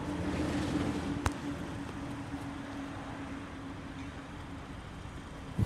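Road traffic passing, a vehicle engine's steady hum slowly fading, over a low rumble, with a sharp tap about a second in.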